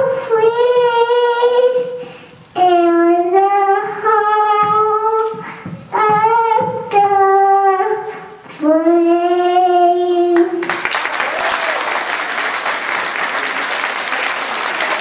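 A small girl singing into a microphone, a short run of long held notes, the last one lower and held for about two seconds; about ten seconds in the singing stops and the audience applauds.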